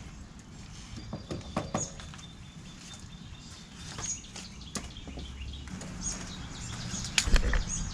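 Scattered light clicks and knocks from handling the removed school bus window and its frame, loudest near the end, with faint bird chirps in the background.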